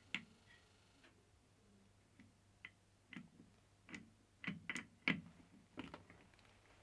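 Faint, irregular clicks and light metal taps from a mini lathe tailstock and its steel clamping plate being handled and turned over in the hands, most of them in the second half.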